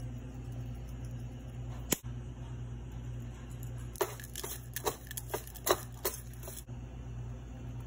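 Hand mixing seasoned raw meat pieces in a plastic bowl: a quick run of wet squishes and small knocks between about four and six and a half seconds in. A single sharp click comes about two seconds in, over a steady low hum.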